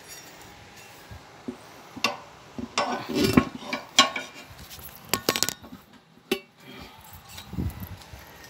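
Sharp metal clinks and knocks of a steel tire iron and a manual tire changer against a steel wheel rim as the tire bead is pried off. They come one at a time every second or so, with a quick rattle of strikes about five seconds in.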